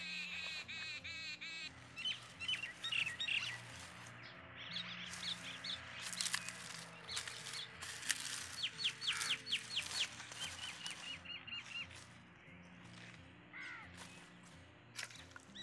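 Small birds chirping in quick repeated calls, over soft background music, with sharp cracks of dry twigs being snapped and handled.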